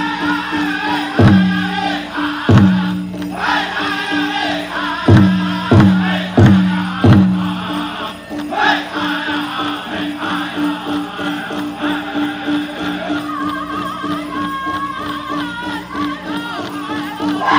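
Pow wow drum group singing in high, wavering voices over a large pow wow drum. Six loud, ringing hard beats on the drum fall between about one and seven seconds in.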